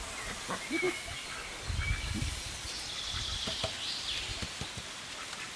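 Farmyard ambience: a few short low calls from poultry, one clear one about a second in, over thin high bird or insect tones, with a brief low rumble about two seconds in.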